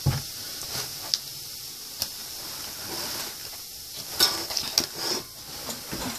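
Scattered light clicks and knocks of objects being handled on a tabletop, with a cluster of them about four to five seconds in, over a faint steady hiss.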